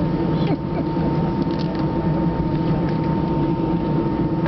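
Airbus A318 cabin noise while taxiing: the jet engines running at idle as a steady hum, with a thin constant whine above it.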